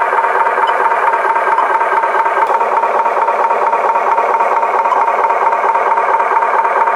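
Battery-powered toy truck's small electric motor and plastic gears running with a steady whirring rattle.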